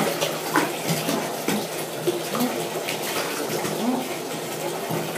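Bathwater splashing and sloshing as a mini dachshund puppy paddles, its paws making a run of small, quick splashes in a bathtub.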